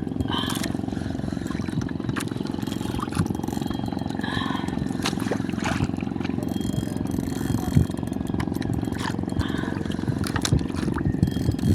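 Boat engine running steadily, with a few scattered clicks and knocks over the hum.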